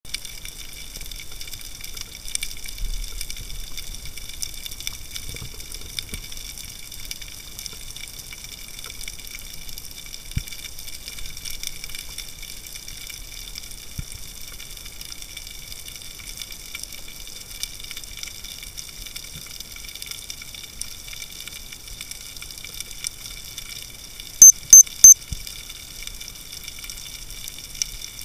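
Underwater ambience picked up by a camera in a waterproof housing: a steady hiss with faint scattered ticks. About 24 seconds in come three loud, short, sharp sounds in quick succession.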